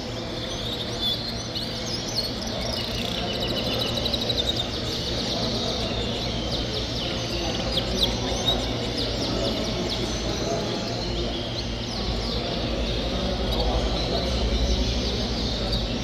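Many caged show canaries chirping, with short bursts of rapid trills, over the steady background noise of a large hall.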